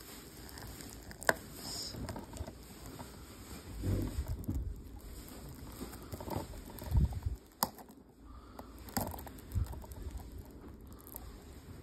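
Hands working at a plastic DVD case to open it: rustling and scraping of fingers on the case and its wrapping, with a few sharp clicks and dull knocks of handling close to the microphone.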